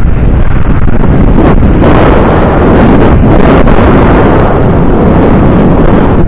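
Heavy wind buffeting on the microphone of an action camera riding on a moving e-bike, very loud and close to clipping, with no steady tone standing out.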